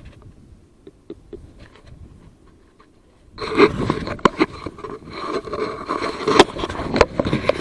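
Quiet with a few faint clicks, then from about three seconds in a loud, continuous scraping and rustling close to the microphone, with sharp clicks.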